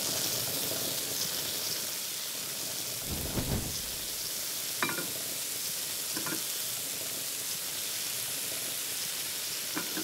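Garlic cloves, whole cherry tomatoes and anchovies sizzling steadily in a hot frying pan as a pan sauce for seared steak, with a few short knocks and clinks against the pan.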